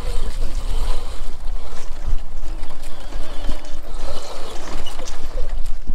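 Wind buffeting the microphone as a steady low rumble, while a 36-volt electric kids' ATV drives across grass.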